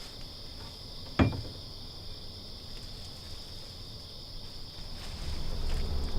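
A steady high-pitched drone, like an insect chorus, under a single sharp knock about a second in. A low rumble rises near the end.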